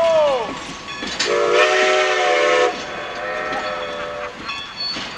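Steam whistle of Strasburg Rail Road No. 90, a 2-10-0 steam locomotive, blowing as the train pulls out: a blast that sags in pitch and dies away in the first half-second, then a steady blast of about a second and a half. Under it, the passenger coaches rolling past on the rails.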